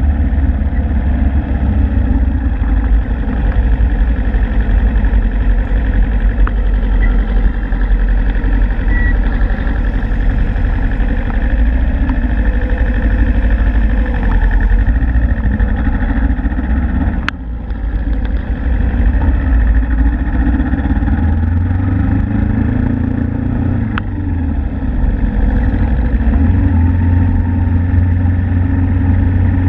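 Suzuki Inazuma GW250's 248 cc parallel-twin engine running as the motorcycle rides slowly through street traffic. Its pitch rises and falls again about three-quarters of the way in, and a single sharp click sounds a little past halfway.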